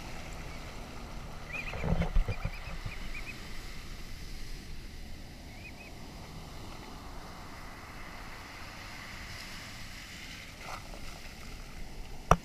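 Heavy storm surf breaking and washing up a sandy beach, with wind on the microphone. A loud thump comes about two seconds in, and a sharp knock near the end.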